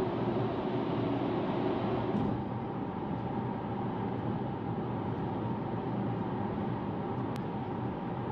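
Steady road and engine noise inside a moving car's cabin. It drops slightly about two seconds in, and there is a single click near the end.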